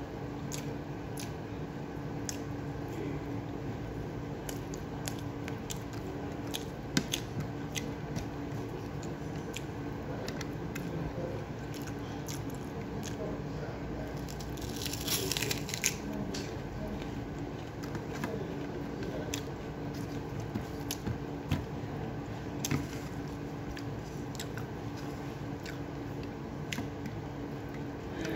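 Close-up eating sounds: wet chewing and mouth smacks with many small clicks of fingers picking food off a plate. About fifteen seconds in comes a crisp crunching bite, most likely a raw green onion stalk. A steady low hum runs underneath.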